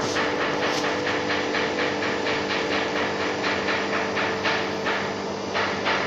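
Industrial plant machinery: a steady hum with several held tones under a hiss, and a rapid run of short clacks, about four or five a second, that thins out near the end.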